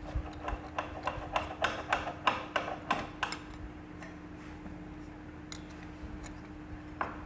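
Light metallic clicks and clinks, about three or four a second for the first few seconds and then only now and then, as oil-soaked clutch plates of a motorcycle clutch assembly are handled and fitted, over a steady low hum.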